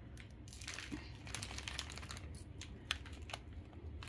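Faint, irregular clicking and light crinkling of a plastic food packet being handled, with one sharper click about three seconds in.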